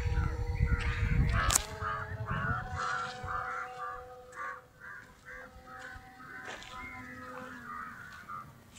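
Crows cawing over and over, against the thin steady whine of a small RC plane's electric motor, which rises in pitch about a second and a half in.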